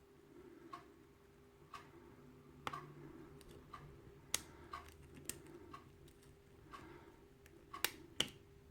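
Faint clicks of a hook pick and tension wrench working the pins of a Kwikset pin-tumbler lock, with a steady ticking about once a second underneath; the sharpest clicks come about halfway through and near the end.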